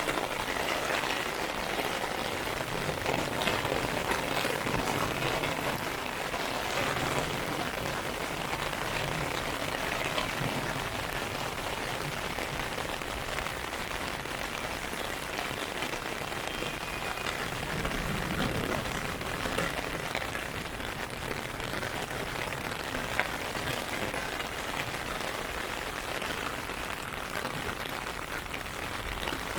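Heavy rain falling steadily, pattering on an umbrella and the ground.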